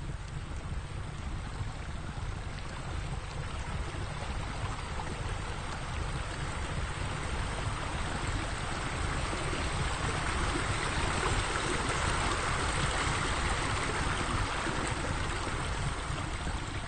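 Steady rushing noise, swelling louder in the middle and easing off near the end.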